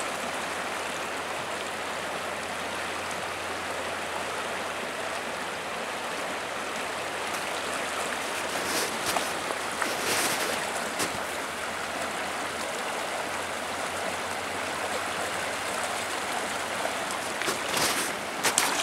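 Shallow river current rushing steadily around a wading angler's legs, with a few sharp splashes about halfway through and a cluster more near the end as water churns at his waders during the fight with a hooked fish.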